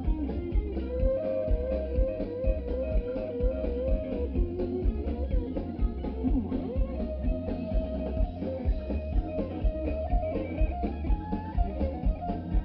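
Live blues band playing an instrumental passage: a lead guitar plays bent, wavering notes over bass and a steady beat.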